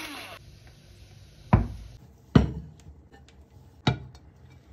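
An electric pepper mill whirrs briefly and stops under half a second in. Then come three sharp knocks at uneven intervals, the loudest sounds here, as of a glass baking dish being set down on a wooden cutting board.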